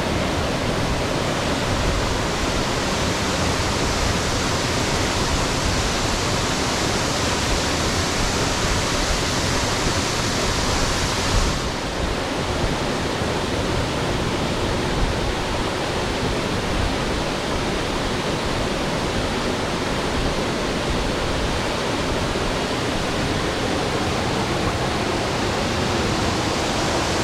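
Waterfall water rushing steadily close to the microphone, a dense, even roar of falling water; the sound turns slightly duller about twelve seconds in.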